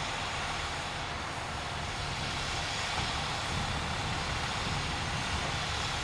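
Steady low engine rumble under a constant hiss, with no change or distinct events.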